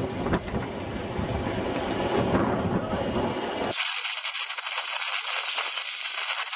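Wind buffeting the microphone over the rumble and clatter of a ride-on miniature train running on 7.5-inch gauge track. A bit past halfway the low rumble cuts off abruptly, leaving a thin, high rattling hiss.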